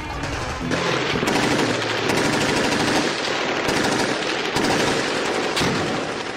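Automatic machine-gun fire, a long stretch of rapid shots with no break, coming in about a second in as the music ends and fading out near the end.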